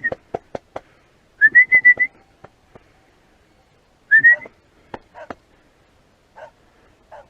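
A hunter whistling to call his pointing dog: three quick runs of short whistle notes, each rising onto the same high pitch. Short sharp taps sound between them.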